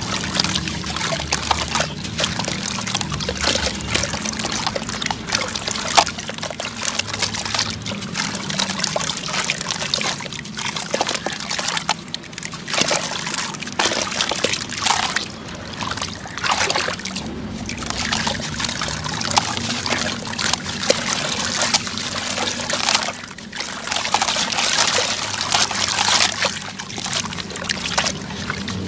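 Dry sand and cement crumbling and trickling down in a continuous grainy stream, with many small crackles throughout.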